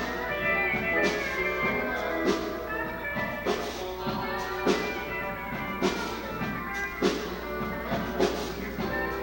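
Live band playing music with sustained instrument notes and a sharp drum hit about every second and a bit.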